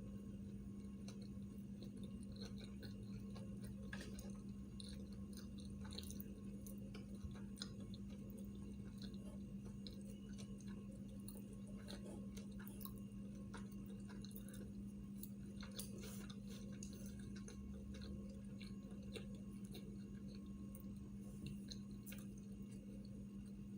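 A person chewing sushi rolls, with faint soft mouth noises and small clicks scattered throughout, over a steady low hum.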